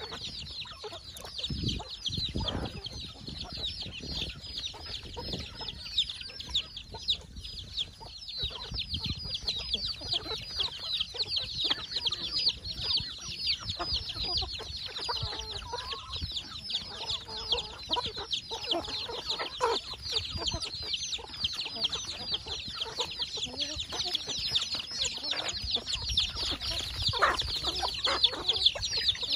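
A flock of chickens feeding: many chicks peeping constantly in short high calls, with hens clucking lower in between.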